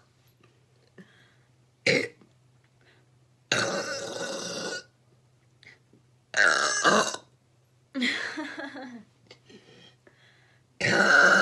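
A person burping, about five burps in a row with short pauses between: a brief one about two seconds in, then longer ones of about a second each, the last starting near the end.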